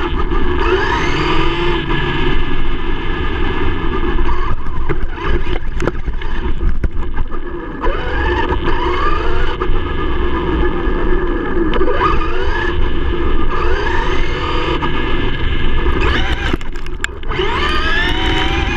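Traxxas E-Revo electric RC truck's motor whining, rising in pitch again and again with each burst of throttle. Underneath is the rumble of tyres on rough pavement, with scattered ticks of grit and small stones.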